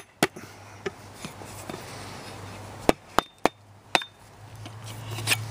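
A plastic mallet knocks an axe head down onto its wooden handle, test-fitting it on the freshly sanded eye end. There are sharp knocks in bursts: a couple at the start, a quick run of four about three seconds in, and one more near the end.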